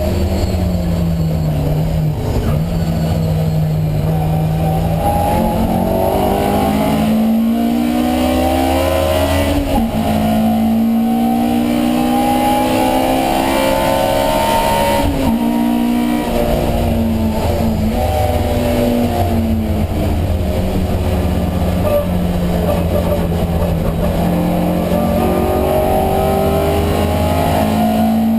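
Alfa Romeo Giulia 1600's twin-cam four-cylinder racing engine heard from onboard at full racing effort, its pitch climbing under acceleration and dropping sharply at each gear change, about three times, then falling away to lower revs before climbing again near the end.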